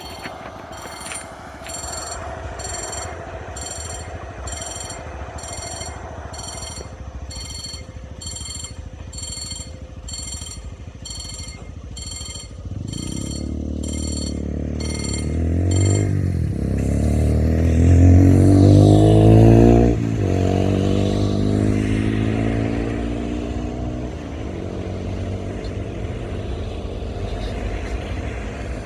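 A level-crossing warning bell rings at about one and a half strokes a second. A diesel train then approaches and passes close, loudest a little past halfway, its engine pitch dropping as it goes by, and fades as the bell stops.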